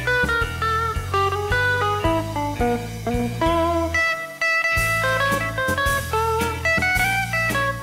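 Instrumental blues music: guitar playing melodic lines over bass and drums. The bass and drums drop out briefly about four seconds in.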